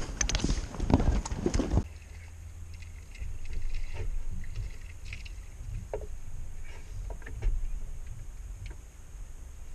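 Loud rushing noise full of short knocks while a spinning reel is cranked to bring a hooked fish in. It cuts off sharply about two seconds in, leaving a low wind rumble on the microphone with a few scattered light knocks and taps as the fish is lifted into the skiff.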